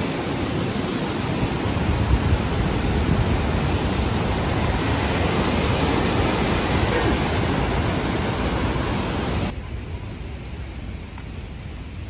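Rushing whitewater of the Potomac River rapids, a steady loud rush. It drops suddenly to a quieter level about nine and a half seconds in.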